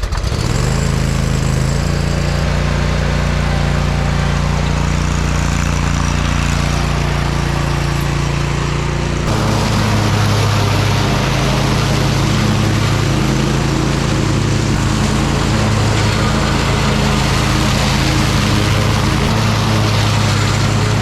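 Toro Titan Max zero-turn mower's engine running steadily just after starting. About nine seconds in, its sound changes and gets a little louder.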